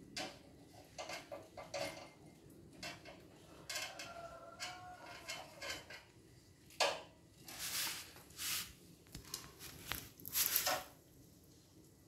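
Small metal clinks, taps and scrapes as the gas nozzles and fittings of a water heater's burner are unscrewed and handled. There is a short ringing note about four seconds in, and louder scraping clatters in the second half.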